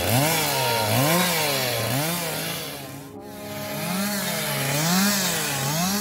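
Two-stroke petrol chainsaw cutting into a large tree trunk. The engine revs up and down about once a second and eases off briefly about halfway through.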